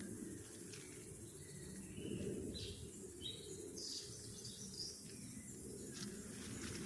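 Wild birds giving a quick run of short chirps in the middle, over a steady high insect hum and a low steady rumble.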